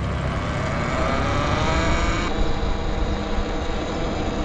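Talaria Sting R electric dirt bike's motor whine rising in pitch as it speeds up, breaking off about two seconds in and settling into a steadier whine over a low rumble.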